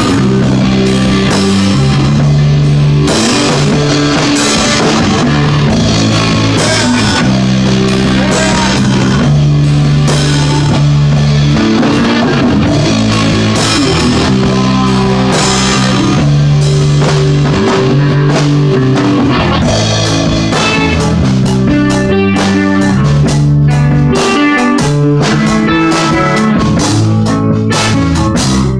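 A band jamming loud rock together: guitar playing a repeating riff of held low notes over a drum kit keeping a steady beat with cymbals.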